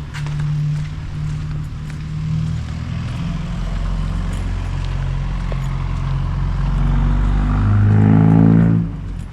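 Engine of a passing motor vehicle, getting louder over several seconds to a peak with its pitch sliding down, then dropping away abruptly near the end.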